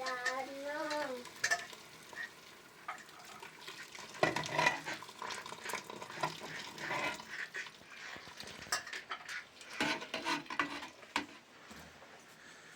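Intermittent clattering, clinking and scraping of small hard objects being handled, in clusters with short pauses between.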